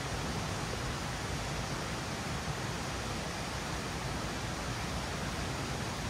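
Steady rushing of a mountain river.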